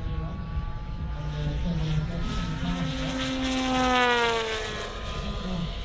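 Engine of a large-scale RC Spitfire model flying past: a steady engine note that grows louder and then drops in pitch as it goes by, loudest about four seconds in.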